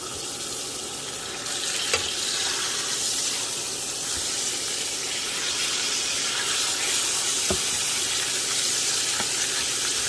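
Steaks frying in melted butter in a pan: a steady sizzle that gets louder about a second and a half in, with a couple of light clicks.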